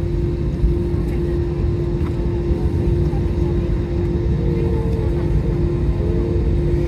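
Airbus A321 cabin noise in the climb: a steady, loud rumble of jet engines and airflow with a constant hum running through it.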